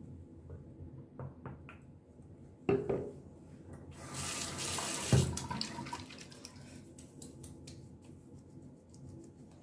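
Single-lever bathroom basin tap turned on, water running onto hands and into the sink for about two seconds before it is shut off. A thump comes about three seconds in and a knock while the water runs; afterwards faint rubbing of wet hands.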